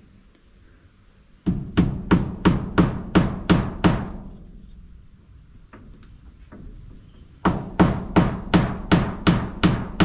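A hammer driving nails into a wooden wall beam in two runs of steady blows, about three a second. The first run starts about a second and a half in; after a pause with a couple of light taps, the second starts about seven and a half seconds in.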